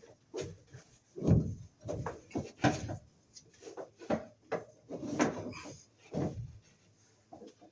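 Irregular knocks, scrapes and rustling as a two-wire Romex cable is fed and fished up inside a drywall cavity, with a heavier thump about a second in.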